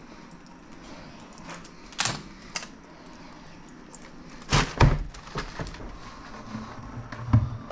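Scattered sharp clicks and knocks, with two louder, heavier thumps about halfway through.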